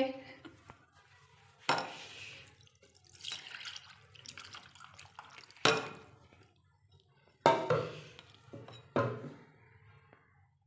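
Melted ghee poured from a metal pot through a mesh strainer into a glass bowl: liquid pouring and splashing in short spells, with four sharp clinks of the pot and strainer.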